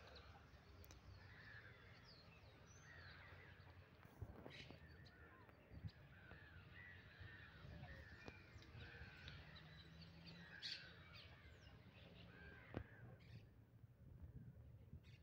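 Faint chorus of many birds calling and chirping, the short calls overlapping and thinning out near the end, over a low steady rumble and a few sharp clicks.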